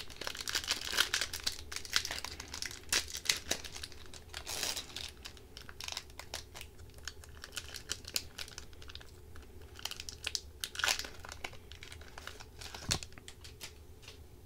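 Foil wrapper of an Upper Deck hockey card pack crinkling and tearing as it is ripped open by hand. The crackling is dense for the first few seconds, then comes in sparser bursts as the wrapper is peeled back and the cards slid out.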